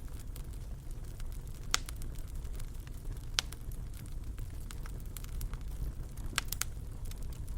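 Fire crackling in a fireplace: a steady low rumble with scattered sharp pops, the loudest a little under two seconds in, about three and a half seconds in, and two close together near the end.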